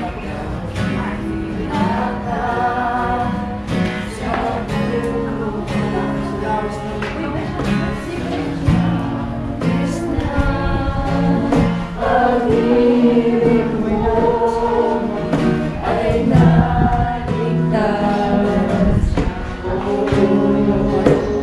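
A group of voices singing a Christian worship song together, with instrumental accompaniment keeping a steady beat.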